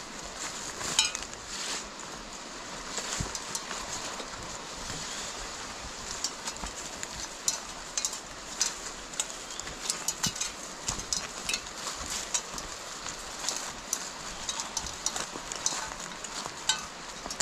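Footsteps crunching and rustling through dry leaves and undergrowth while walking down a slope: an irregular patter of crackles and snaps over a steady hiss.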